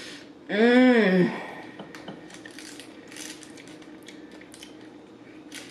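A short wordless vocal sound from a woman, rising and falling in pitch, then a black plastic fork clicking and scraping in a clear plastic side container.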